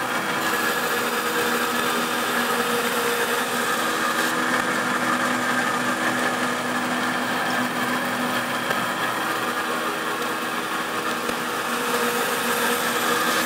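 1998 Timesaver 960-1MW wet-type belt grinder running steadily, its 5 hp motor and abrasive belt giving an even hum with several held tones.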